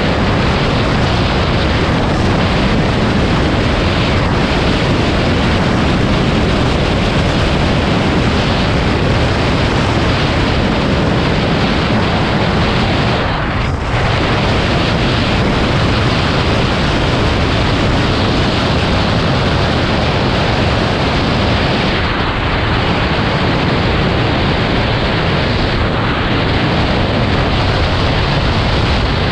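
Loud, steady wind rush buffeting the microphone, dipping briefly about halfway through.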